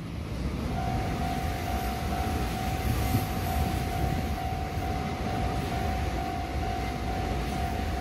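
A train passing with a steady rumble. About a second in, a level-crossing warning bell starts sounding, a steady repeating tone over the train.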